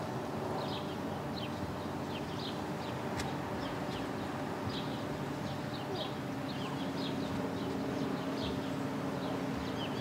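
Birdsong: short, high chirping notes repeating about twice a second, over a steady low hum that grows stronger about six seconds in.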